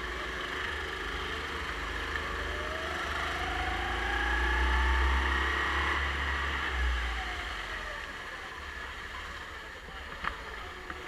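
Go-kart engine heard from the driver's seat, its pitch rising as it accelerates down a straight for a few seconds, then falling away as the throttle comes off for the next corner. A short click near the end.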